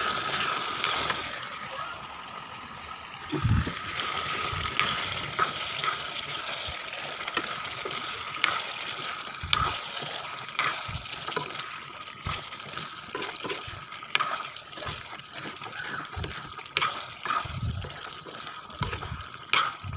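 Chicken and potato curry bubbling and sizzling in a kadai while a spoon stirs it, scraping and knocking against the pan in many short clicks. A faint steady tone runs underneath.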